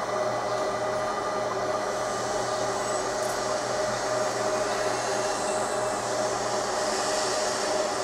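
30 W fiber laser marking machine running, a steady fan hum with a few steady tones.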